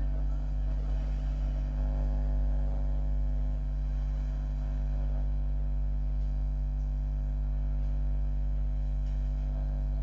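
Steady low electrical hum with a stack of evenly spaced overtones, unchanging and with no other sound standing out.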